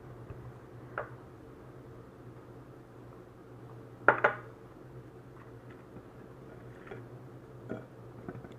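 Tableware clinking during a meal: a light knock about a second in and a louder double clack about four seconds in, with a few faint ticks near the end, over a steady low hum.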